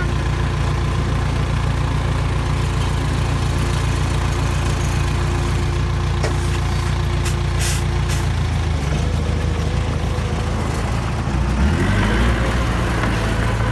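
Diesel engine of a small crawler bulldozer running steadily, heard from on the machine. About nine seconds in the engine note shifts, and near the end it gets a little louder with added clatter as the machine works.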